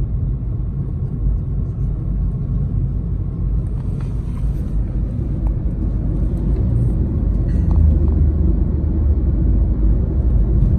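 Steady low rumble of a car's engine and tyres on the road, heard from inside the cabin while driving. It grows a little louder and deeper about seven and a half seconds in.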